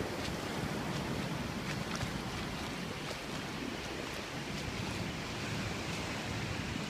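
Ocean surf breaking and washing up a sandy beach, a steady hiss, with some wind buffeting the microphone.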